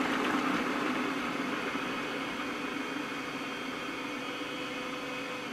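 Hamilton Beach food processor motor running steadily, its blade chopping peeled garlic cloves to a puree. The whir eases slightly over the run and cuts off at the end.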